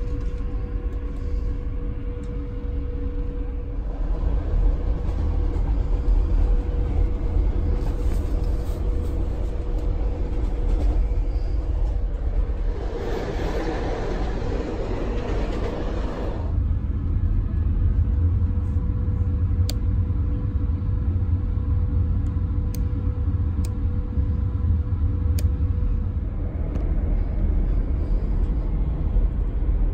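Steady low rumble of a sleeper carriage running on the rails, heard from inside the compartment, with a faint steady hum. About 13 seconds in a louder rushing noise swells for some three seconds, and a few sharp clicks come later.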